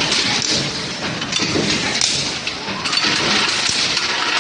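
Hot nut forging line machinery running: a steady mechanical din with many small clanks and knocks throughout.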